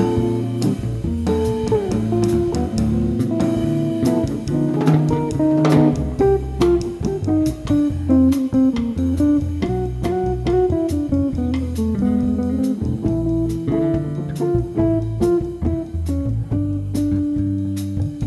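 Jazz guitar trio playing: a hollow-body electric guitar carries a single-note melodic line over electric bass and a drum kit played lightly.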